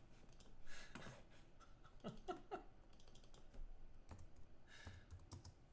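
Near silence, broken by scattered faint clicks and a trace of low muttering.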